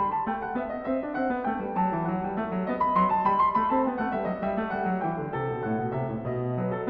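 Solo piano music, a flowing run of many notes with a melody line above a moving bass.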